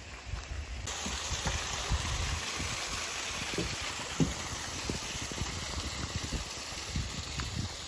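Small waterfall splashing down a rock face: a steady rush of water that comes in suddenly about a second in, with low rumbling underneath.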